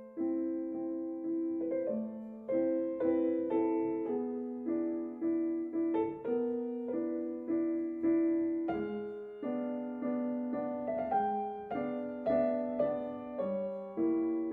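Background music: slow, gentle piano, with notes struck one after another and each fading away.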